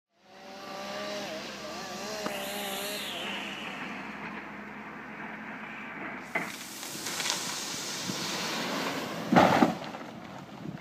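Engine running with a wavering pitch over a steady rushing noise. A brief loud burst of noise comes about nine and a half seconds in.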